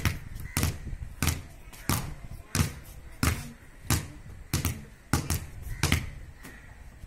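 Two rubber balls being dribbled by hand on a concrete floor, bouncing steadily about three times every two seconds. The bouncing stops about six seconds in.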